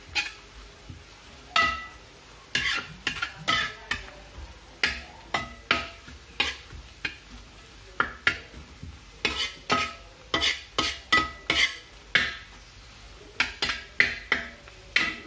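A metal spoon stirring food in a frying pan, knocking and scraping against the pan in irregular ringing clinks about twice a second, over a light sizzle of frying.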